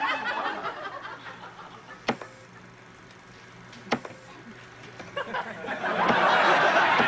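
Studio audience laughter dying away, then two sharp clicks of console buttons, each followed by a short electronic beep, about two and four seconds in. Near the end the audience laughter swells up loudly again.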